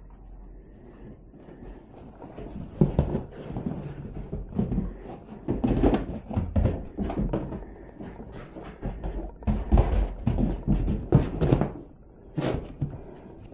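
A galgo scrambling about on a leather sofa: irregular thumps and scuffs from its paws and body, starting a few seconds in, with a short lull near the end.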